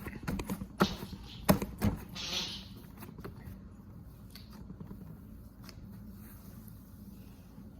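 Cloud slime being squeezed and stretched by hand: a cluster of sharp clicks and pops in the first two seconds, then only faint crackling.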